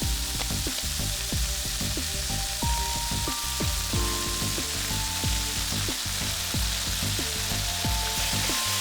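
Chicken gizzards and pineapple sizzling steadily in a hot pan as they are stir-fried, over background music.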